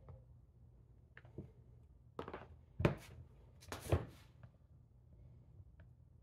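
Handling noise from a hard plastic air/oil separator housing being turned over and set down on a workbench: a handful of short knocks and clunks, the loudest about three seconds in, over a low steady hum.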